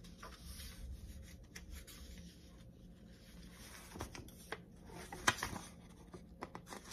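Faint paper rustling and a few soft clicks from a hardcover picture book being handled, with one sharper click about five seconds in.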